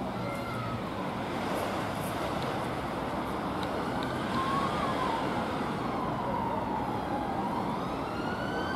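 An emergency-vehicle siren wailing, its pitch sliding slowly down and then climbing again near the end, over a steady hiss of road traffic.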